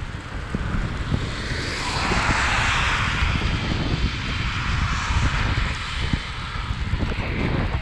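Wind buffeting the microphone of a camera riding along on a bicycle. A rushing hiss from a passing vehicle swells about two seconds in and then fades away.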